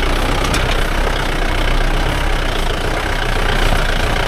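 Mahindra Thar's engine running at low speed as the off-roader crawls over a rough, stony track, with a few brief clicks about half a second in.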